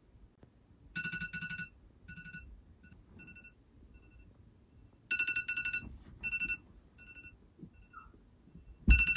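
Wake-up alarm ringing: groups of rapid high beeps on a fixed pitch, each loud group followed by fainter, shorter ones, repeating about every four seconds. A low thump sounds near the end.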